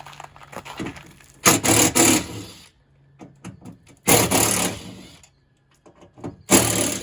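Three harsh scraping, rubbing noises of about a second each, a couple of seconds apart, from hands or a tool working inside a car door.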